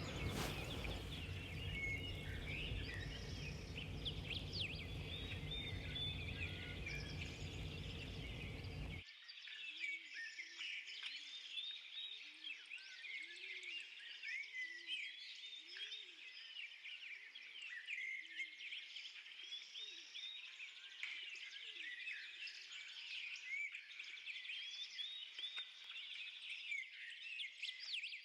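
Many small birds chirping and twittering, with short low rising-and-falling calls repeating about once a second in the second half. For the first nine seconds a steady noise runs underneath and then cuts off suddenly.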